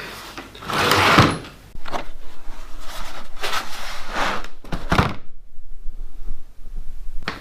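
Hard plastic tool case being opened: latches and lid knocking and thudding in a series of separate bangs, the loudest about a second in.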